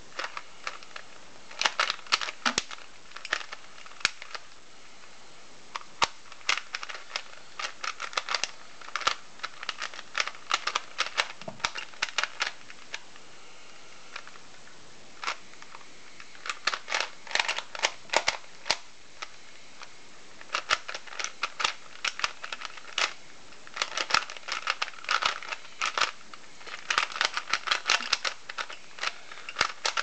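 A plastic 3x3 Rubik's Cube being turned fast by hand, its layers clicking and clacking in quick runs of turns. It pauses a couple of times for a second or two.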